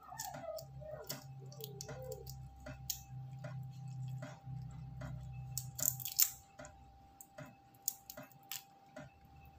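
Raw shrimp being peeled by hand: quick small crackles and wet squishes as the shells and legs are pulled off the slippery shrimp, with a louder crackling burst about six seconds in.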